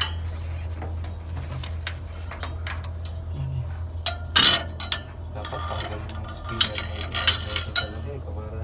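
Metal clinks and scrapes as a flexible metal-sheathed probe knocks and rubs against the fan blades of a Hawker 900XP's engine, in scattered clicks, the loudest a little over four seconds in. A steady low hum runs underneath.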